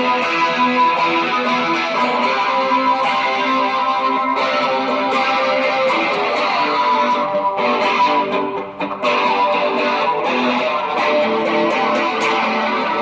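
Electric guitar played through a pedalboard for a tone check: a continuous run of notes and chords, with a short break about eight and a half seconds in.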